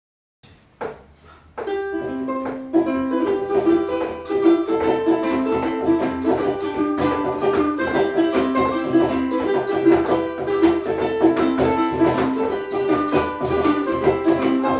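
Ukuleles playing an upbeat instrumental tune with a steady strummed beat. A couple of single plucked notes come about a second in, then the band comes in together.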